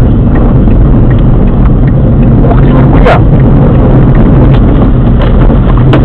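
Steady low rumble of a car's road and engine noise heard from inside the cabin while driving on a snowy street, with faint light ticks and a brief high chirp about three seconds in.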